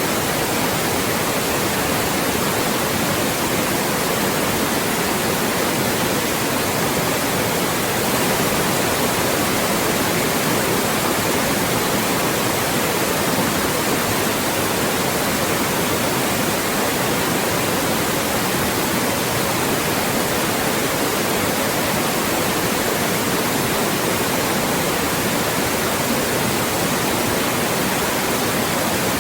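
Steady, loud synthetic white noise: an even hiss across all pitches, unchanging, for masking speech.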